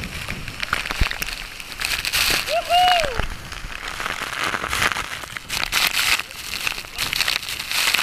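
Heavy waterfall spray pelting a GoPro camera up close: a dense, crackling patter of water. A person gives one short shout about two and a half seconds in.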